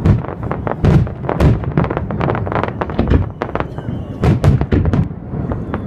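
Fireworks salute going off: a rapid, irregular barrage of bangs, several a second, some with deep thumps.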